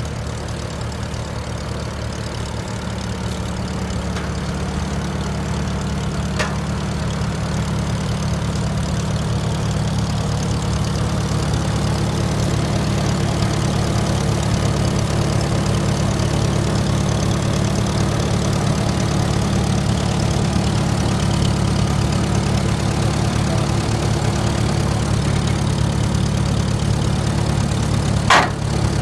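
A 1951 McCormick-Deering W-4 tractor's four-cylinder engine running steadily at low speed, growing louder over the first dozen seconds. A single sharp click comes near the end.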